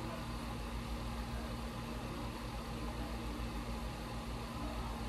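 A steady low hum with an even hiss over it, unchanging throughout: constant room or machine noise with no distinct events.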